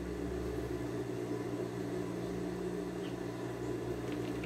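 Steady low background hum with a faint even hiss, and a couple of faint ticks near the middle and the end.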